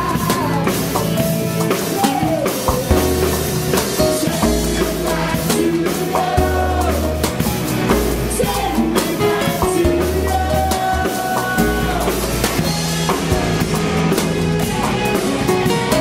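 Live rock band playing: a drum kit keeps a steady beat under long held bass notes and electric guitar, with a woman singing into a microphone.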